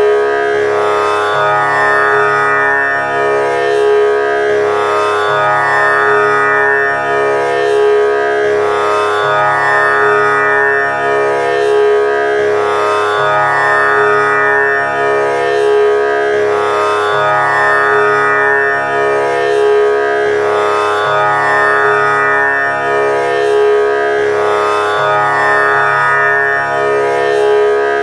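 Instrumental background music over a steady drone, with lower notes changing every second or two.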